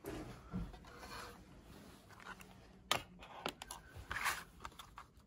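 Clear plastic packaging being handled: rubbing and crinkling of a plastic tray and sleeve, with a sharp click about three seconds in and a few shorter knocks after it.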